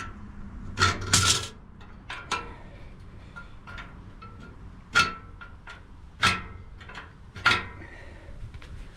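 Center punch tip scratching marking lines onto the steel trailer frame in a few short strokes, with a faint metallic ring.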